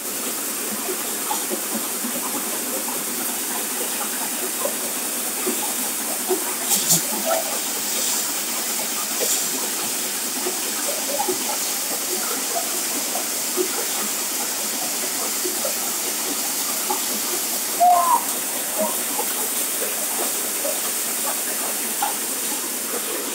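Tractor-driven grain-cleaning machine running: its winnowing fan gives a steady rushing hiss, with small scattered rattles as grain shakes across the sieve.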